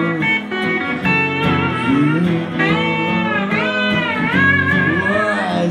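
Live song on a strummed acoustic guitar, with a man singing long held, wavering notes into the microphone in the second half.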